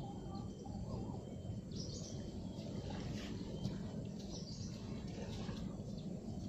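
Outdoor ambience: a steady low background rumble with a few brief bird chirps, about two seconds in and again around four to five seconds in.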